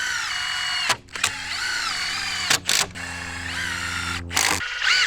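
Power drill driving screws into wooden footing forms, its motor whine rising and dipping in pitch. It stops briefly about a second in and again a little past halfway, and cuts off shortly before the end.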